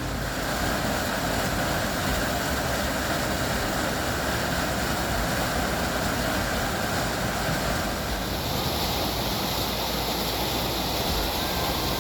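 Waterfall's rushing water, a steady, even roar of falling water.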